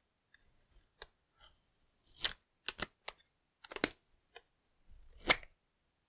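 An adhesive caution label being peeled off a smart dimmer switch: irregular small sharp clicks and crackles with soft rustles, the loudest click near the end.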